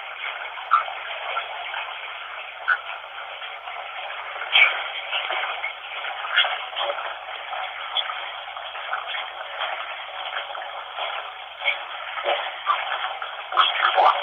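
Steady running water, an even hiss with small crackles and splashes dotted through it, sounding thin and tinny.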